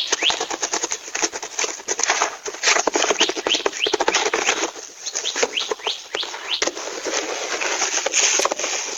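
Birds chirping: many short, quick rising calls repeated throughout, over a dense, continuous clatter of rapid taps.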